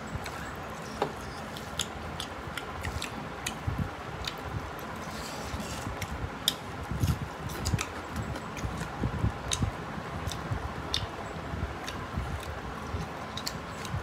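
Eating sounds: fingers kneading rice on metal plates and mouths chewing, with scattered small clicks and soft squishes.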